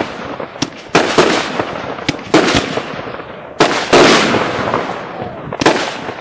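Consumer fireworks bursting in the air: a run of sharp bangs, several coming in quick pairs, each dying away in a long echoing tail.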